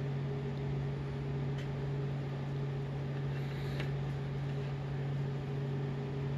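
Steady low hum with a few overtones, room noise from an appliance or fan, with two faint taps about one and a half and four seconds in as the handmade paper journal is handled.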